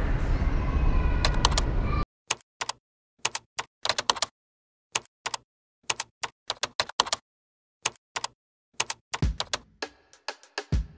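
Typing sound effect: a run of short, irregular key clicks in otherwise dead silence, of the kind laid under a typed-on title. Before it, about two seconds of steady room noise that cuts off abruptly; near the end, a couple of low thumps.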